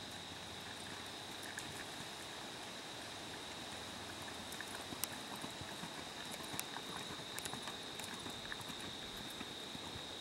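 Hoofbeats of a ridden black mare on a soft dirt arena: scattered soft thuds and clicks, more frequent from about four seconds in, over a steady high-pitched whine.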